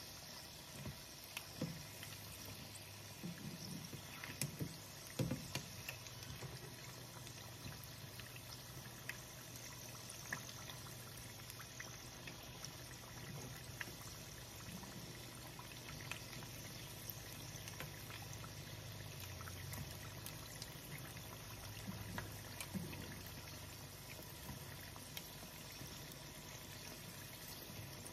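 Wontons and egg rolls deep-frying in a pan of hot oil: a steady, faint bubbling sizzle over a low hum. Metal tongs click and tap against the pan and food several times in the first few seconds, with a few more taps later.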